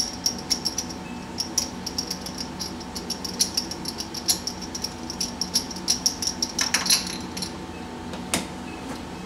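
Ratchet wrench with a spark plug socket clicking in quick runs as the spark plugs are loosened. The clicking stops about three-quarters through, followed by one sharp knock.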